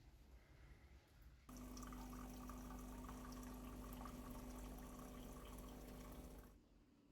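Water running from a tap for about five seconds over a steady low hum, starting and stopping abruptly.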